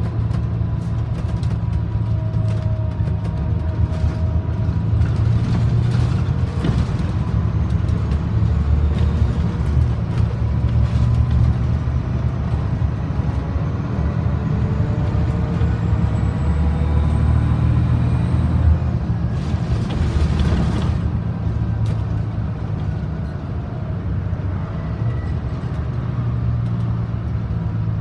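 Scania OmniDekka double-decker bus heard from the upper deck while driving: the diesel engine's steady low drone shifting in pitch, with rattles and clicks from the bodywork. A short burst of hiss about twenty seconds in.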